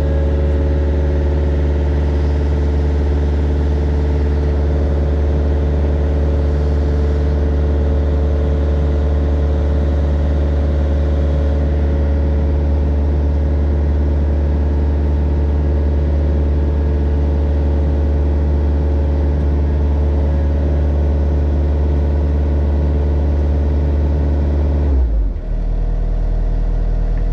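Mini excavator's diesel engine running steadily at a constant speed, with a strong low hum. About 25 seconds in, the engine note drops suddenly to a lower, steady pitch.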